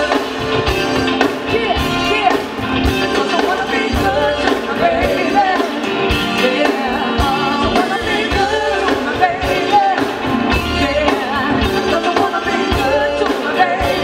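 Live soul band playing with singing: vocals over a steady drum beat, with congas, keyboards and electric guitars in the band.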